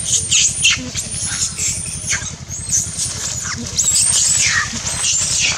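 Macaque squealing again and again in short, high-pitched cries that sweep downward, loudest from about four seconds in, over a steady low rumble.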